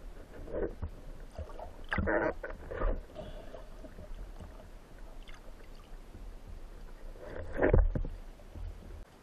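Wooden speargun fired underwater near the end: a single sharp muffled thud as the shaft is released and hits a fish. It is the loudest sound here. Before it there are softer muffled knocks and rustles of the diver moving in the water.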